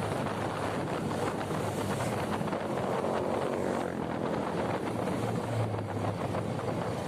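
Steady wind and road noise of a vehicle on the move, with a low, even engine hum underneath.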